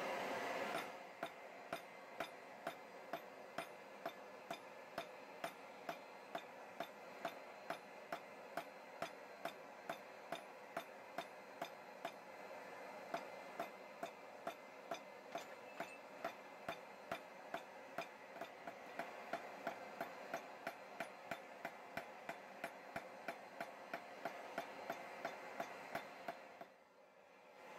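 Hand hammer striking a hot steel bar on an anvil in a steady rhythm, about two to three blows a second, with a short pause near the end, over a steady background noise.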